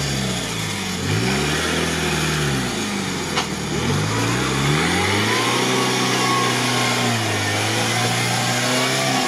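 Off-road UAZ's engine revving up and down in several surges, then held at steady high revs, as it labours through a deep mud rut.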